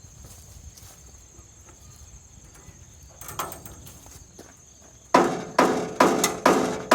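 Hammer blows on a steel part of a portable sawmill, starting about five seconds in and coming about twice a second, each strike ringing briefly. Before them a single lighter knock about three seconds in.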